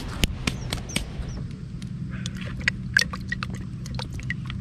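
A hand splashing and rummaging in a bucket of water to pull out wet moss bait, with irregular drips and small sharp splashes. A steady low hum runs underneath.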